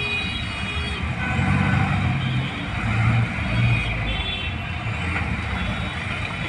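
Road traffic: vehicle engines running with a low rumble, and brief higher tones coming and going.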